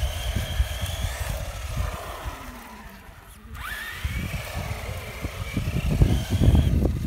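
Traxxas Slash 4x4 RC truck's electric motor whining on tarmac: the whine climbs as it accelerates, dies away about three seconds in, then climbs again. A low rumble runs underneath.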